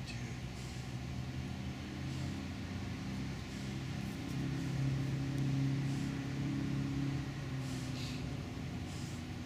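A low, engine-like motor hum that grows louder through the middle and eases off toward the end.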